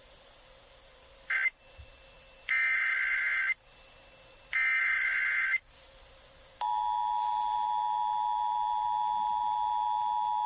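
Emergency Alert System tones over FM radio. First come short bursts of the SAME digital header data, two of them about a second long and a second apart. Then, from about two-thirds of the way through, the steady two-pitch EAS attention signal sounds, announcing an incoming tornado warning.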